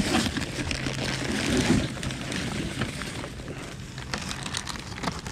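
Foam packing cubes and a plastic bag rustling and crinkling as a hand digs through a cardboard box of parts, with small scattered clicks and taps.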